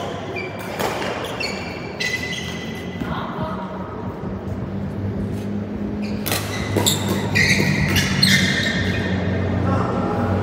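Badminton rally: several racket strikes on the shuttlecock and court shoes squeaking on the court mat. The sound echoes in a large hall.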